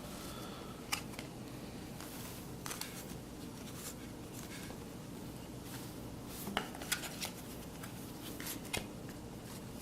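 Baseball cards being handled and flipped through by hand: light rustling with scattered sharp clicks and snaps.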